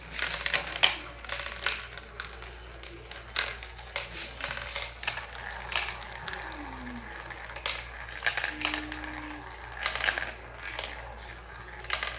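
Marbles clattering down a roller-coaster-style marble run: a steady stream of irregular clicks and rattles.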